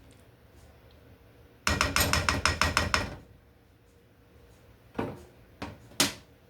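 A quick run of about a dozen sharp metallic taps, around nine a second, then two single knocks about a second apart, from cookware being handled at the stove.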